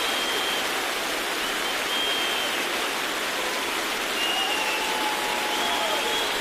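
A large audience applauding steadily, with several long high whistles over the clapping.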